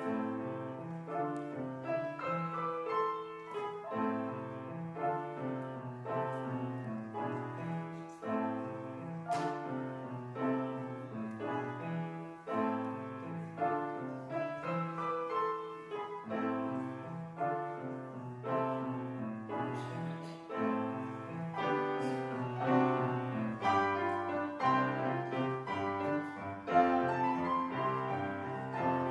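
A chamber trio playing instrumental music, piano to the fore with bowed strings underneath, in a steady, continuously moving pulse of notes and chords.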